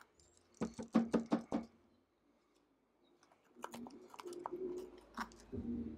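A spoon scraping and crunching inside a fresh jalapeño pepper as its seed core is twisted out: two bursts of short crisp crunches with a pause between them.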